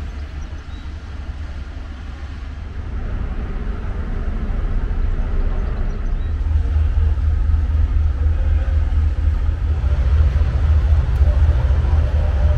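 Low, steady engine rumble that grows gradually louder over the seconds.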